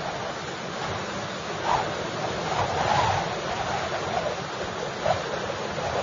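Strong storm wind blowing and whistling in gusts, swelling about two seconds in, again around three seconds, and in a short sharp gust near the end.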